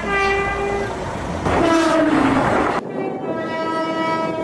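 Train horns: a two-tone horn sounding a high note then a lower note that sags slightly, then, after a sudden cut, another train's horn holding a single steady note.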